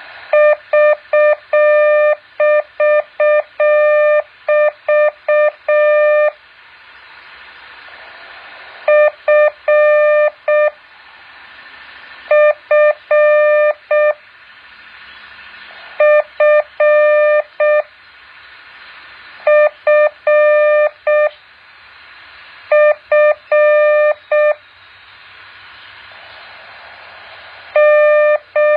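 Morse code practice tone: a single steady-pitched beep keyed on and off in dots and dashes. It is sent in bursts of a few characters, with pauses of two to three seconds between them, over a steady hiss.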